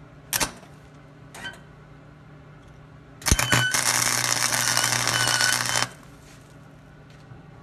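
Harbor Freight wire-feed (MIG) welder: two brief arc sputters about a second apart, then after a few quick strikes the arc crackles steadily for about two seconds with a low hum under it. The welder is filling a nut set over a weld-built pile on a broken stud, to fuse the nut to the stud.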